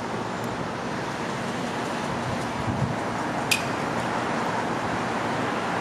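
Steady outdoor rush of wind and distant traffic, with one sharp click about three and a half seconds in.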